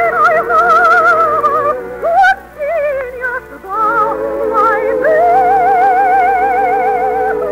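Operetta music: a soprano sings long held notes with wide vibrato over orchestral accompaniment. The line breaks into shorter, quieter phrases in the middle, then holds another long note from about five seconds in.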